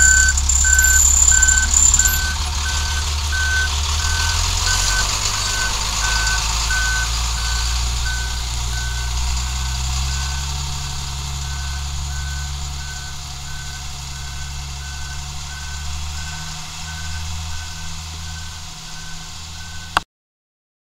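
Backup alarm of an International rear-loader garbage truck beeping steadily, about one and a half beeps a second, over the truck's running engine as it reverses away, slowly growing fainter. The sound cuts off suddenly near the end.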